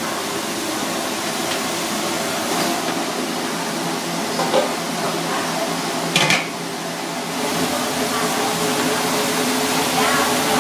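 Kitchen ambience: a steady noisy hum with occasional clinks of metal cookware and utensils, the sharpest about six seconds in.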